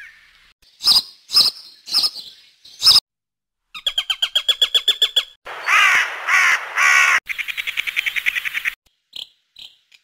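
Recorded bird calls from a bird-sounds app, several species one after another. Four loud separate calls come first, then a rapid series of about nine calls a second, three longer calls, a fast trill, and a few short chirps near the end.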